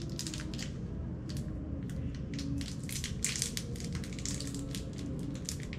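Crinkly plastic wrapper being picked and worked open by hand: a run of irregular crackles.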